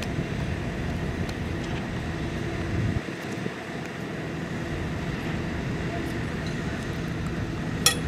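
Heavy earthmoving machinery's diesel engine running steadily, with two sharp metallic clanks near the end.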